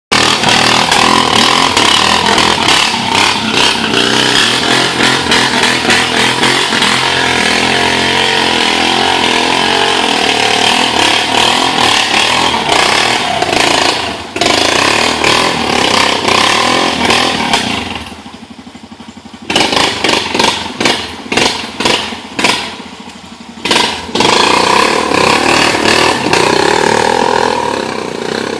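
Honda Foreman 450 ATV's single-cylinder four-stroke engine running hard under throttle, dropping back briefly about two-thirds of the way through and again a few seconds later before picking up again.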